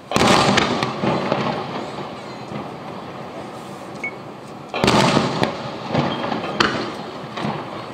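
Aerial firework shells bursting: a loud boom just after the start that rolls off over about a second, another loud boom a little before five seconds in, then several smaller sharp cracks.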